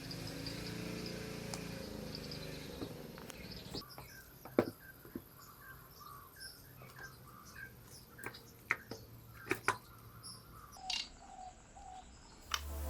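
Birds chirping in short repeated calls, with a faint steady hum in the first few seconds and several sharp clicks or taps scattered through the middle and end.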